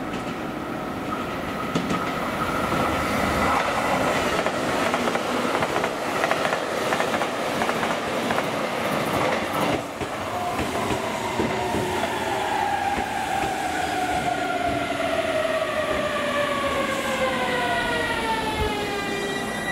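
JR Kyushu 885 series electric express train passing at speed: a steady rush of wheels on rail and running gear. From about halfway, a whine falls steadily in pitch as the train goes by and draws away.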